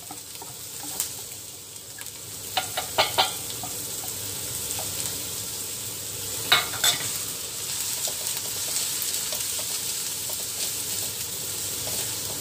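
Chopped onion sizzling in melted butter in a wok: a steady frying hiss, with a few sharp knocks of the spatula against the pan as it is stirred, about three seconds in and again near the middle.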